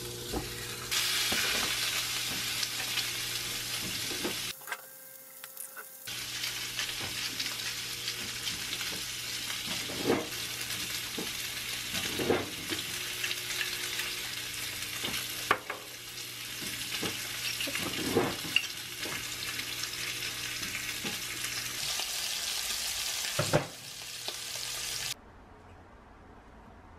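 Slices of pork belly sizzling and spitting in a hot frying pan, broken by a few sharp knocks. The sizzle cuts off suddenly near the end.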